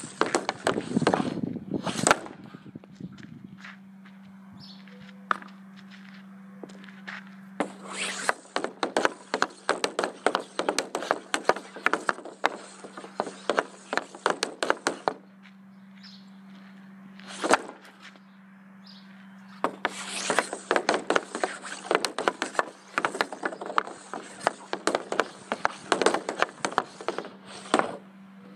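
A Bauer composite hockey stick handling a puck on a shooting pad: rapid clicking and tapping of the blade on puck and pad in two long runs. A few louder single cracks come near the start and once around the middle.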